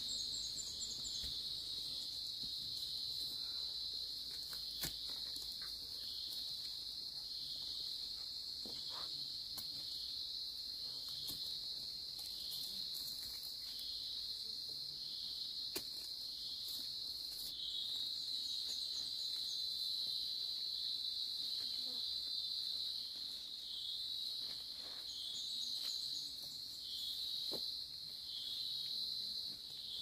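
A steady, high-pitched chorus of insects, pulsing slightly, with a few faint knocks scattered through.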